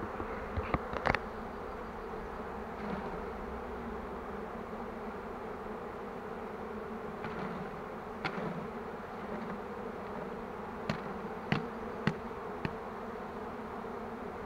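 Honeybees from an opened hive buzzing in a steady, even hum, with a few sharp clicks and knocks scattered through it, most of them in the second half.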